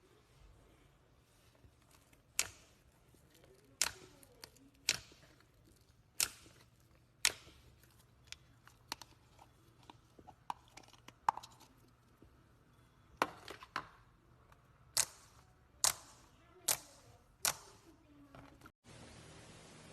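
Slime being pressed and stretched by hand, giving sharp wet pops and clicks roughly once a second, with fainter crackles between them.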